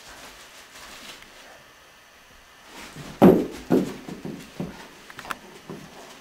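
A Doberman mouthing and picking up a ring toy from the carpet: quiet at first, then from about three seconds in a loud short knock followed by several fainter knocks and scuffs.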